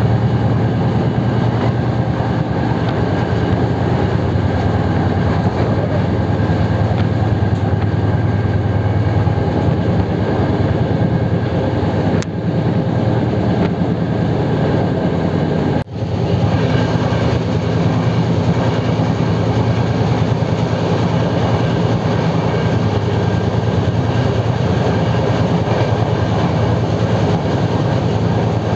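Express train with LHB coaches running along the rails: a steady, loud, low rumble of wheels on track. The sound drops out briefly twice, about twelve and sixteen seconds in.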